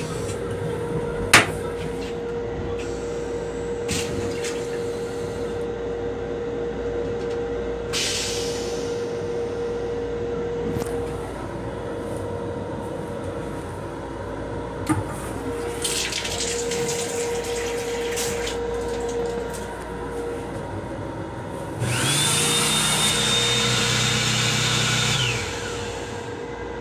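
Restroom fixtures on an M7 railcar. A toilet seat clacks down about a second in, the sink faucet later runs water in short hissing spells, and near the end the built-in hand dryer runs for about three seconds with a high whine, then cuts off. A steady electric hum lies under it all.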